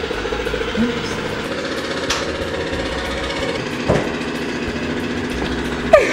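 A motor running steadily, a hum with a fast, even pulse. There is a single knock about four seconds in and a sudden loud sound right at the end.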